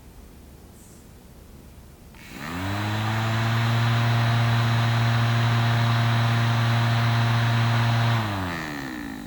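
Small electric fan motor of a miniature toy air conditioner switching on about two seconds in. It spins up quickly to a steady hum with a rush of air, then is switched off near the end, its pitch falling as it spins down.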